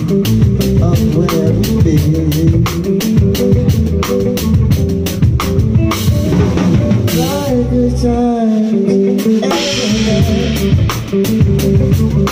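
Live band playing a groove on drum kit and electric bass with no words sung. The bass drops out briefly about eight seconds in, then the groove comes back in.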